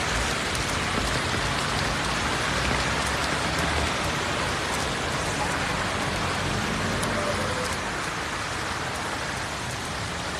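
Heavy rain falling steadily, pattering on the flooded street, easing slightly after about eight seconds.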